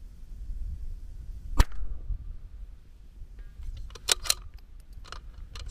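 A single .22 LR rifle shot, a sharp crack with a short ringing tail, about a second and a half in. It is followed by a run of sharper, quieter clicks as the bolt is worked for the next round.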